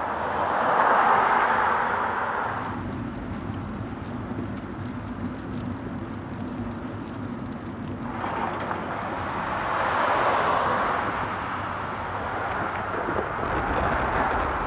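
Cars passing on a two-lane highway bridge, each one swelling and fading as it goes by: one in the first three seconds, another from about eight to eleven seconds, and a third near the end, over a steady rush of road noise.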